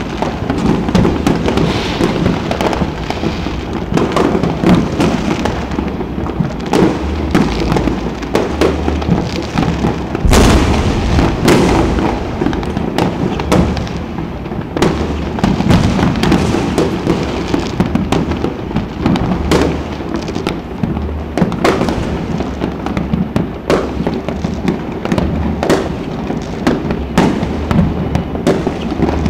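Many aerial fireworks going off at once, a dense, unbroken crackle of bangs and pops, with one big bang about ten seconds in.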